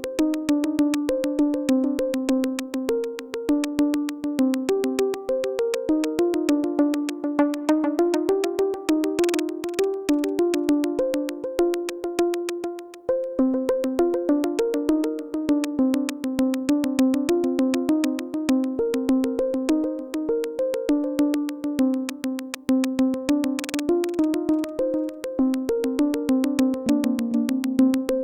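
Electronic ambient music: a Vermona Perfourmer analog synthesizer plays a sequenced pattern of short pitched notes, wet with reverb and delay, over a fast, even ticking pulse. A brief noisy swell rises twice.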